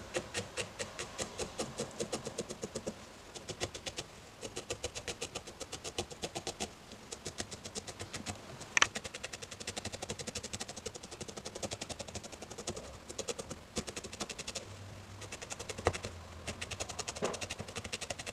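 Fine barbed felting needle stabbing repeatedly into a ball of wool, about five or six quick pokes a second, pausing briefly now and then while the piece is turned. A single sharper click about nine seconds in.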